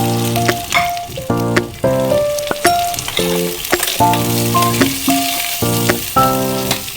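Pasta frying in hot oil, sizzling steadily, with sharp clicks of stirring. Background music with a melody plays over it and is the most prominent sound.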